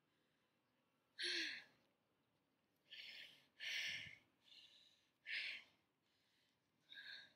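A woman breathing hard after exercise: about six heavy, hissy exhalations and sighs a second or so apart, the first one voiced with a falling pitch.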